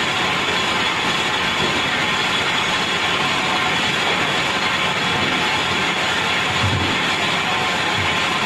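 Lathe running steadily while machining a motor body, a constant machine-shop noise with a thin steady high whine and a couple of brief low thuds near the end.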